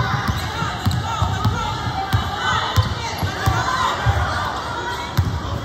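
Gym crowd of children and spectators shouting and cheering during a basketball game, many voices overlapping, with scattered low thuds from the court.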